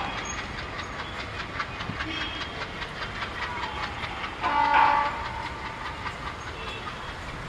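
Diesel-hauled passenger train rolling by, its wheels clattering over the rail joints. About halfway through there is a short, loud, high-pitched tone.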